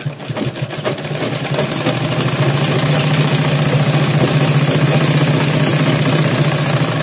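Sewing machine stitching a single straight seam along a folded fabric edge. It grows louder over the first two seconds, then runs steadily at a fast, even stitching pace with a low hum.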